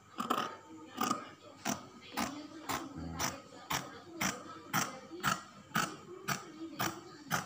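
Scissors cutting through fabric in a steady rhythm, the blades snipping shut about twice a second.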